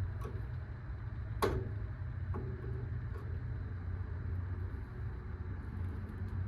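A steady low hum with a sharp knock about a second and a half in and a fainter knock about a second later.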